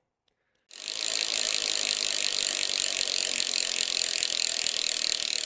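Bicycle freewheel ratchet clicking very rapidly as the rear wheel spins, starting just under a second in and holding steady.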